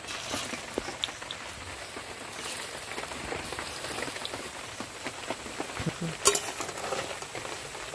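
Jute-leaf pakoras frying in hot oil in an aluminium kadai: a steady crackling sizzle. A sharp metallic clink comes about six seconds in as a metal spatula strikes the pan.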